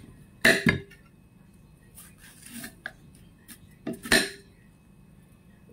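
Kitchen knife striking a glass plate while slicing watermelon into chunks: two sharp clinks about half a second in and two more about four seconds in, with fainter scraping between them.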